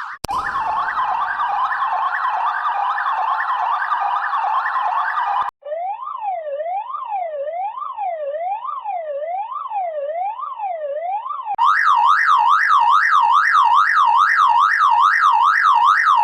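Electronic car alarm siren, a tone sweeping steadily up and down, in three altered versions one after another. First comes a dense warbling version, then from about five seconds in a slower, lower, muffled one at a bit over one sweep a second. From about eleven seconds in comes a louder, higher one at about two sweeps a second, with faint low thuds under it.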